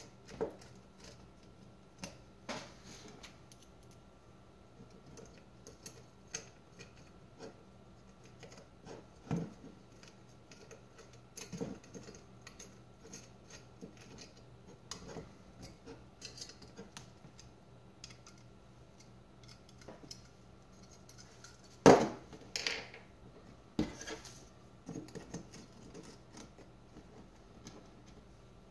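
Small metal clicks, taps and scrapes from screws and a tiny eyeglasses Allen wrench working on an aluminum case end plate, which is being screwed on by hand. A sharper knock comes about three-quarters of the way through.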